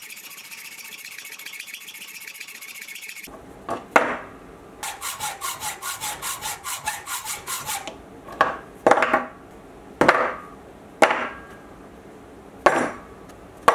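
Hand hacksaw cutting through a mild steel bar held in a vise, rasping back and forth in quick, even strokes. From about 8 seconds in, about six separate clunks with a short ring, as cut steel blocks are set down on a wooden bench.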